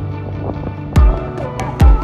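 Background music with a beat: sustained melodic notes over ticking percussion, with two heavy, deep drum thumps, about a second in and near the end.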